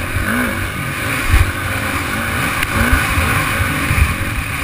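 Dirt bike engine heard from on board the riding bike, its revs rising and falling over and over with the throttle. Dull wind rumble buffets the microphone throughout.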